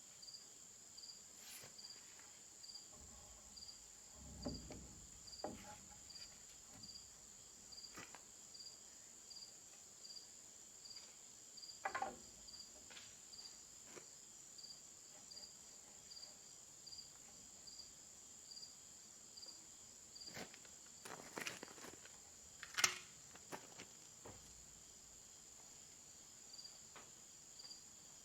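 Crickets and other insects droning steadily, one chirping a little faster than once a second. Scattered short knocks and taps break in, the sharpest about two-thirds of the way through.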